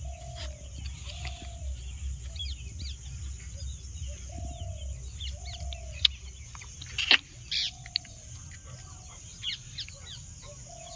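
Birds calling: a short, low, arching note repeated in pairs about once a second, with scattered high chirps from small birds over a steady low rumble. Two sharp knocks come about six and seven seconds in.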